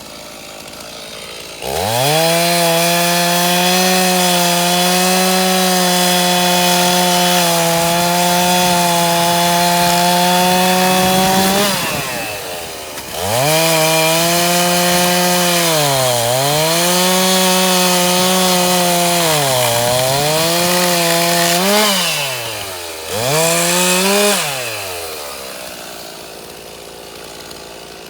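Stihl two-stroke chainsaw revving up to full throttle and cutting wood for about ten seconds, dropping back briefly, then revving and cutting again with the engine note sagging twice. A short final rev follows before it settles to idle.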